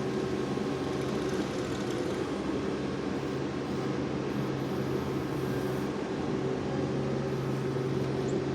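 ASV RT-40 compact track loader's diesel engine running steadily under work. The engine note sags a little about three seconds in and picks back up around six seconds.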